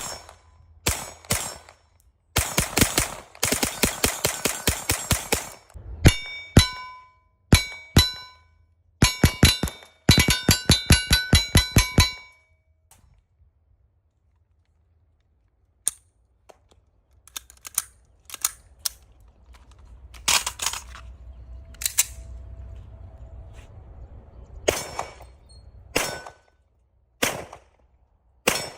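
Small-calibre gunfire: rapid strings of shots, some followed by a brief metallic ringing, then a pause of a few seconds and slower single shots near the end.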